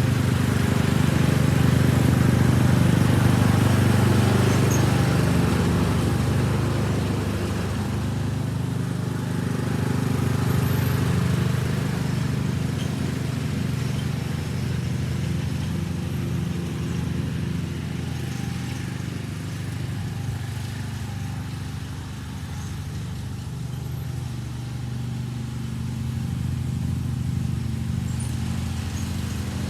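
John Deere riding lawn mower's engine running steadily while mowing, a little louder in the first few seconds and easing slightly later on.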